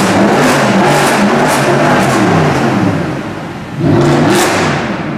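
Mercedes-Benz SLS AMG's 6.2-litre V8 being revved in a string of short blips, easing off, then one bigger rev about four seconds in, echoing in an underground car park.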